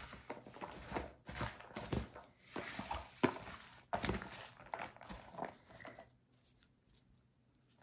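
Kitchen handling sounds while preparing pikliz: a run of knocks, clatters and rustles of ingredients and containers being handled, which stops about six seconds in.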